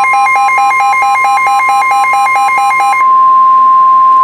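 NOAA Weather Radio warning alarm: a loud, steady single tone of about 1050 Hz, signalling a warning about to be read. For the first three seconds a second electronic alarm beeps over it at about four beeps a second, then stops, leaving the steady tone alone.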